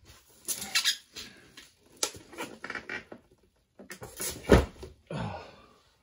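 Bubble wrap crinkling and crackling as a bubble-wrapped cardboard box is handled, with a thump about four and a half seconds in as the box is set down flat.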